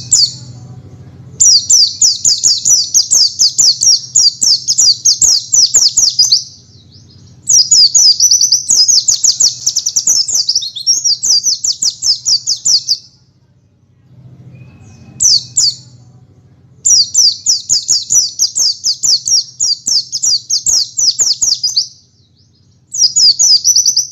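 Small songbird singing the rapid canary-style 'tembakan' song used as masteran for white-eyes: long runs of fast, high repeated trilled notes lasting several seconds each, broken by short pauses, with one brief burst midway.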